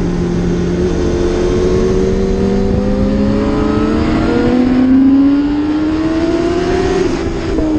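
Sport motorcycle engine heard from an onboard camera, pulling hard with revs rising steadily, then falling sharply near the end. Wind rushes over the microphone throughout.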